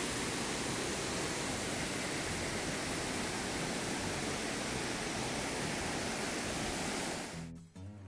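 Steady rushing of a forest waterfall and its stream, an even roar that cuts off suddenly near the end.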